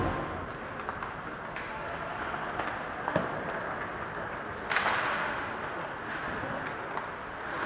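Ice hockey play in an arena: sticks and puck clacking sharply now and then over the steady noise of the hall, with one loud crack that rings briefly about four and a half seconds in.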